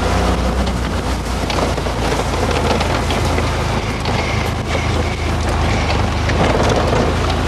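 Off-road buggy engine running steadily, with wind noise on the microphone and scattered short knocks.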